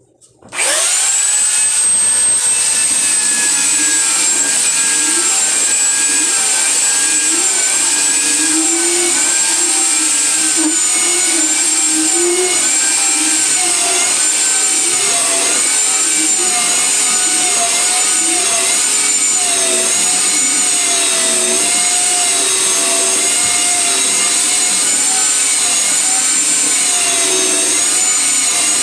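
Loud power sander starting up about half a second in and running on wood, with a high whine whose pitch wavers up and down throughout.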